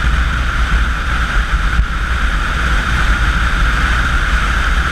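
Wind rushing and buffeting over the microphone on a motorcycle at highway speed, with the bike's engine and road noise underneath; steady throughout.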